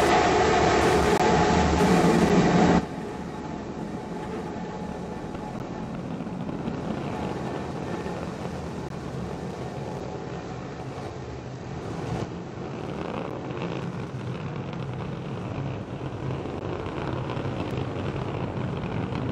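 Roar of Starship SN15's three Raptor engines during its climb: loud and even for about three seconds, then cutting down sharply to a quieter, steady rumble for the rest.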